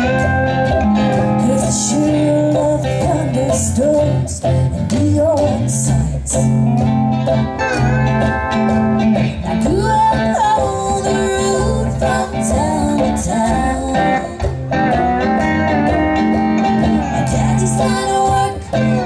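Live country/bluegrass band playing: a mandolin picked over steady upright-bass notes, with a woman singing.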